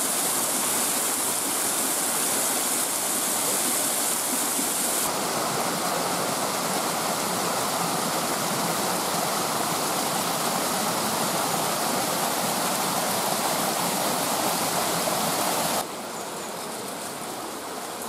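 Steady rush of falling water from a small waterfall spilling down a mossy rock face into its stream. The tone shifts about five seconds in, and near the end the rush drops to a quieter level.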